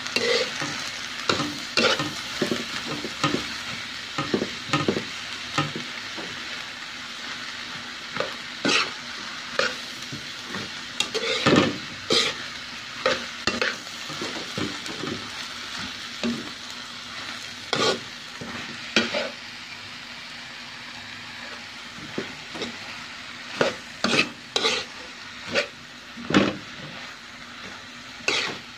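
Shredded cabbage sizzling as it is stir-fried in a pan, with a metal utensil scraping and clacking against the pan in irregular strokes. The clacks are busiest at the start and again near the end, with a quieter stretch of plain sizzling in between.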